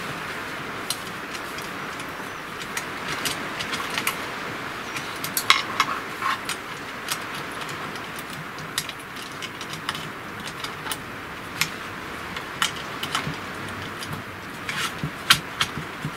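Scattered small metallic clicks and taps as mounting screws and nuts are handled and fitted into the slotted aluminium bed of a 3018 CNC router, over a steady background hiss.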